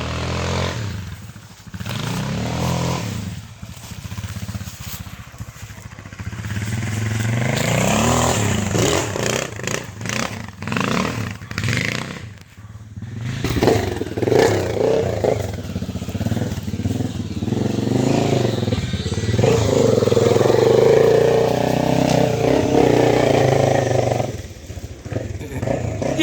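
Motorcycle engine running under load on a trail ride, revving up and down repeatedly as the throttle is worked, with some clatter.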